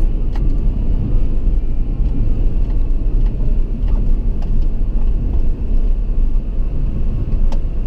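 Steady low rumble of a car's road and engine noise heard from inside the cabin, with a few light ticks and clicks.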